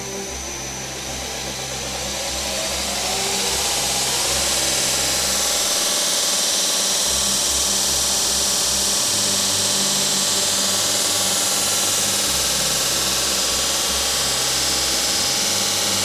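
Home-built 2x48-inch belt grinder's electric motor spinning up over the first few seconds, rising in pitch, then running steadily with a high hiss from the sanding belt.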